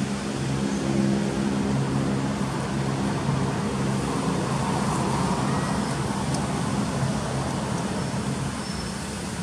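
A motor vehicle's engine running with a steady low hum that fades in the last couple of seconds, with a few faint high chirps over it.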